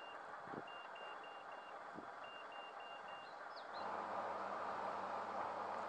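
High electronic warning beeper sounding in quick groups of four short beeps, each group about a second long with short pauses between. About four seconds in, it gives way to a steady hiss with a low hum.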